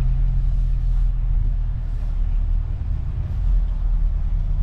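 Car engine running at low speed as the car creeps forward, a steady low hum.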